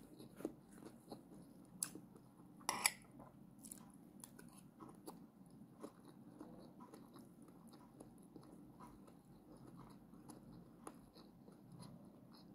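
Faint close-up chewing of a bitter melon (ampalaya) dish with rice, with a few sharp clicks. The loudest click comes about three seconds in.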